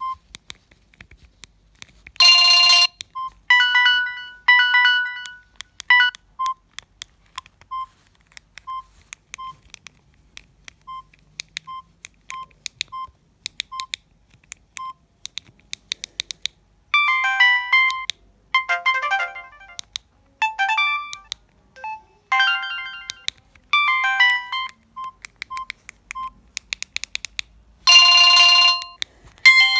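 Samsung GT-E1170 mobile phone playing its built-in ringtones: electronic beeping melodies. Single beeps are spaced out through the middle, with quicker runs of notes after that. A buzzy burst of several tones comes about two seconds in and again near the end.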